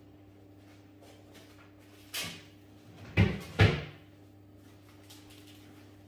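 Kitchen cupboard door being opened and shut: a softer knock, then two loud bangs about half a second apart.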